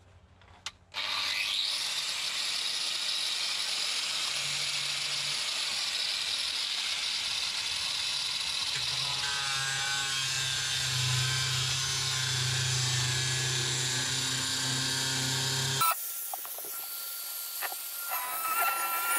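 Handheld angle grinder switched on, spinning up and cutting into the aluminium cover plate over an Audi A2's former fuel tank. It cuts off abruptly about three-quarters of the way through, a few knocks follow, and the grinder starts up again near the end.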